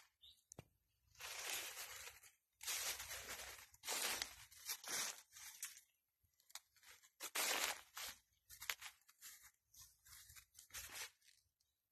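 Dry leaves and undergrowth rustling and crunching in irregular bursts, as someone walks through a banana grove.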